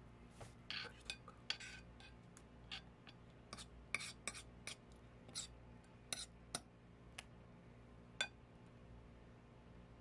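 A small metal spoon clinking and scraping on a ceramic plate as sauce is spread around it: a string of light, irregular taps and scrapes, the last sharp clink about eight seconds in.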